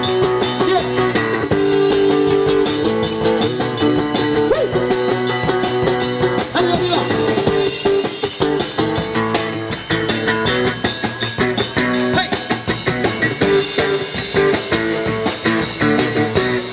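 Live band playing an instrumental passage: guitar chords held and changed every second or so, over a quick rattling percussion keeping time.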